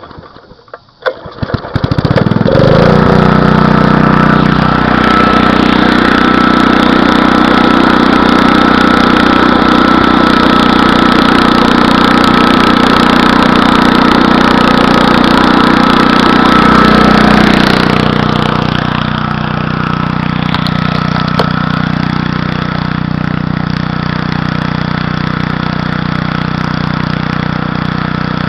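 Small engine driving a homemade alternator welder starting up: a few sharp cranking sounds, then it catches about two seconds in and runs steadily at high speed. Around eighteen seconds in its note drops a little and it carries on running more quietly.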